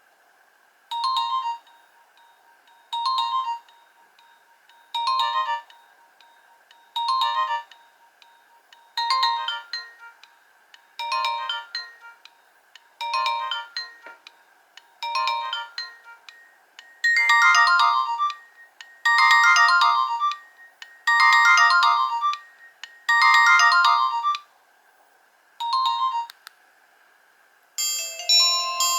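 Nokia 1800 mobile phone ringtone playing through the phone's speaker. A short electronic melody phrase repeats about every two seconds and gets clearly louder about two-thirds of the way through. Near the end a different ringtone melody begins.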